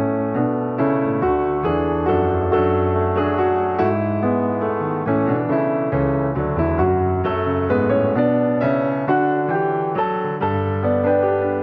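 Background piano music: a steady flow of struck notes and sustained chords, with no speech.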